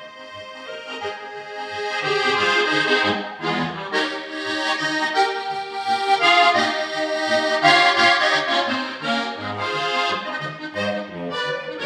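Slovenian diatonic button accordion (frajtonarica) played solo: a melody over a pulsing bass-and-chord accompaniment, starting softly and growing louder over the first couple of seconds.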